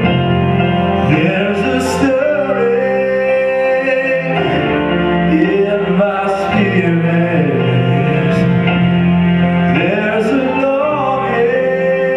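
Live band playing loudly: a man sings over held chords and drums, with a few cymbal crashes.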